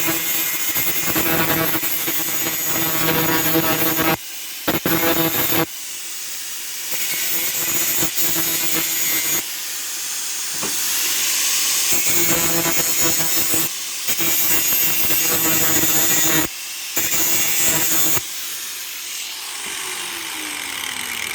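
Angle grinder with a cutoff wheel running against steel pipe, a loud steady hissing whine broken by a few short pauses. Near the end the motor's pitch falls as it winds down.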